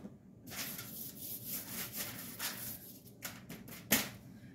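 Gloved hands rubbing dry seasoning into a rack of pork baby back ribs on a foil-lined baking pan: soft rustling and scraping, with the aluminium foil crinkling. A few short sharp crackles come near the end, the loudest about four seconds in.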